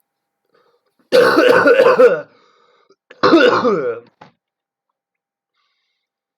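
A person coughing in two loud bouts, each about a second long, about a second apart.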